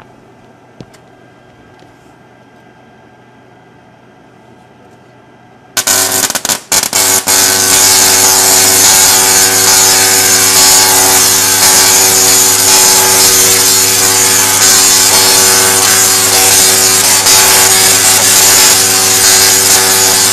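A large Tesla coil firing: just under six seconds in, a sudden, very loud buzzing crackle of sparks starts, stutters for a second, then runs steadily. This is a 250,000-volt lightning bolt striking the handle of a swallowed sword.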